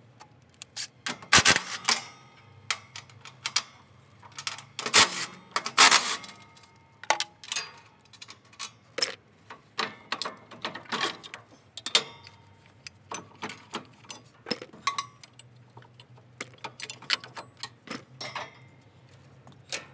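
Irregular metallic clicks, clinks and knocks of hand tools, bolts and steel mounting brackets being taken off the top of an excavator's radiator, with a few louder knocks in the first six seconds.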